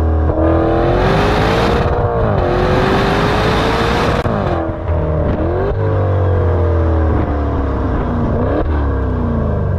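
Exhaust of the Maserati Levante Trofeo's Ferrari-built twin-turbo V8 under hard acceleration, revs climbing through the gears for the first four seconds or so. Then the revs fall as the car slows, with two sudden jumps up in pitch from downshifts.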